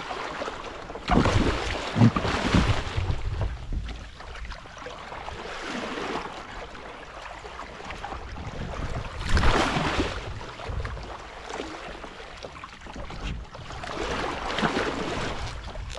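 Sea water splashing and sloshing against the side of a kayak as a hooked shark thrashes at the surface alongside it, in three louder bursts (about a second in, around nine seconds, and near the end). A steady low rumble of wind on the microphone runs underneath.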